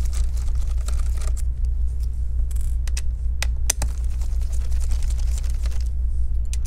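Scattered light clicks and taps of small screws and a screwdriver being handled at a laptop's hard-drive bay, over a steady low hum.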